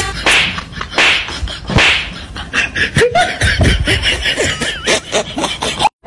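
A run of sharp hand slaps, several strokes close together, with a person's voice calling out briefly between them. The sound cuts off suddenly near the end.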